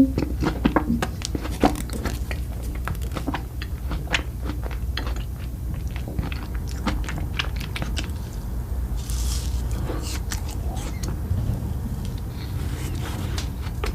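Close-up chewing and crunching of food, with many crisp clicks coming thick and fast in the first half and more spread out later, over a steady low hum.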